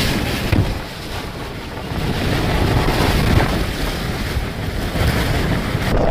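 Storm-force wind blasting across the microphone: a loud, continuous rushing noise with gusts. The sound changes abruptly near the end as one clip gives way to the next.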